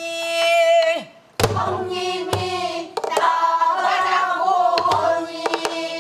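Pansori singing with a buk barrel drum: a long held sung note, then a sharp drum stroke about a second and a half in. A wavering, ornamented sung line follows, with a few more drum strokes.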